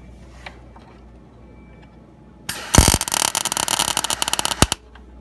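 MIG welder arc crackling and spitting in one short burst of about two seconds, starting about halfway in and cutting off abruptly: a short weld run on thin van body steel.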